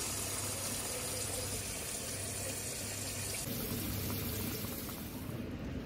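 Water poured from a bowl into a hot frying pan of chicken, splashing and sizzling as it hits the pan. The sound changes a little about three and a half seconds in.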